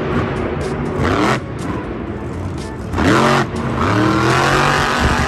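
Car engine revving sound effect for a toy monster truck, its pitch sweeping up and levelling off several times over a steady rushing noise.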